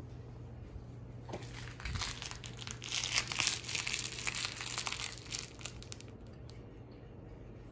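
Crinkly rustling from a plush cat toy on a striped cord being brushed over a cat and the leather sofa, starting about a second and a half in, loudest in the middle and fading out about six seconds in.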